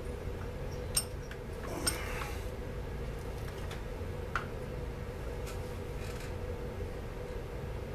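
A few sharp clicks and light clinks of plastic and metal parts as a Stihl MS 250 chainsaw is handled and worked on by hand, over a steady low hum.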